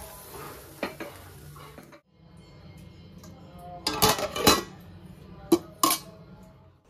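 Metal pots and utensils clinking and knocking during kitchen work: a few sharp separate clanks, the loudest cluster about four seconds in and two more shortly after.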